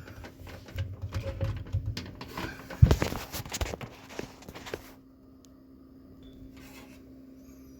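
Clicks and knocks of the Tesla charger's plug being handled and pushed into the NeoCharge splitter's secondary outlet, with one loud knock about three seconds in. The handling stops about five seconds in.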